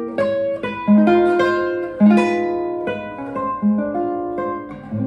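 Nylon-string classical guitar played fingerstyle: a slow passage of plucked chords and notes, a new chord about every second, each left ringing as it fades.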